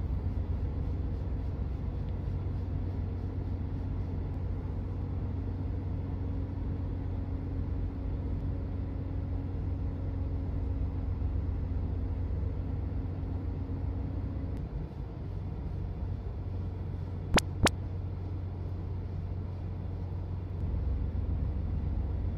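Steady low hum of a car idling, heard from inside the cabin. A steady higher tone in the hum drops out about two-thirds of the way through, and two sharp clicks come in quick succession a few seconds later.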